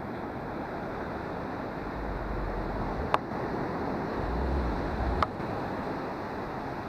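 Ocean surf washing onto a beach, with wind buffeting the microphone in low gusts and two sharp clicks about two seconds apart.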